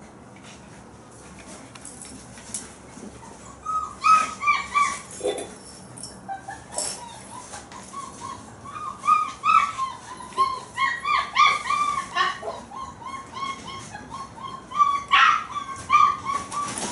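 Month-old German Shepherd puppies whining and yipping in quick runs of short, high calls, starting a few seconds in and coming in louder bursts now and then.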